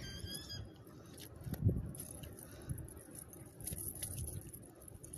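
Rustling and small clicks of a nylon cast net being handled as small fish and weeds are picked out of its mesh, with a few soft bumps, the loudest about a second and a half in.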